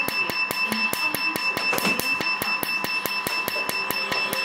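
Tattoo-removal laser handpiece firing rapid pulses against the skin, a sharp snap with each pulse at about eight a second, over a steady high tone.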